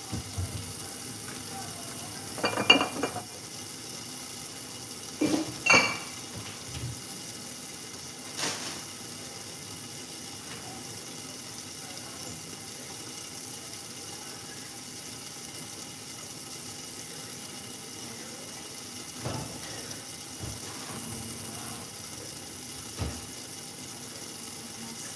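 Dishes and metal utensils clattering a few times, loudest about three and six seconds in, over a steady low sizzle of chicken frying in a lidded pan.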